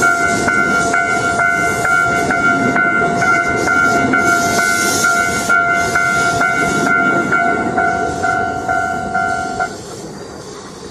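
Japanese level-crossing warning bell ringing, a steady electronic ding repeating about twice a second, while a train runs past. The bell cuts off suddenly near the end and the train noise fades.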